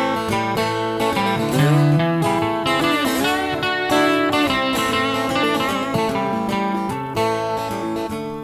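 Blues guitar introduction: plucked and strummed guitar notes with a couple of bent notes, before the vocal comes in.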